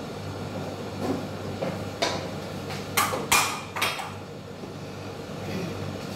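Kitchen clatter: four sharp knocks between about two and four seconds in, the second pair close together, over a steady low hum while a pot of curry sauce cooks on a gas stove.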